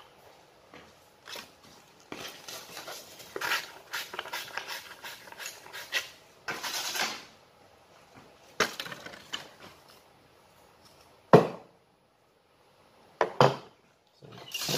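Hand tools and PVC pipe parts being handled and set down: clicks and rummaging clatter for several seconds, then two loud sharp knocks near the end.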